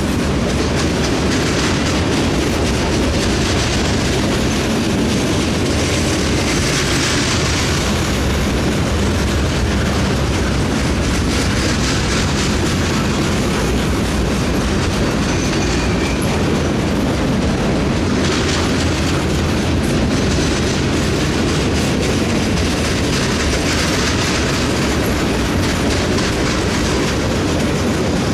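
Flatcars of a freight train loaded with large pipes rolling past at close range: a steady, loud rumble and clatter of steel wheels on the rails.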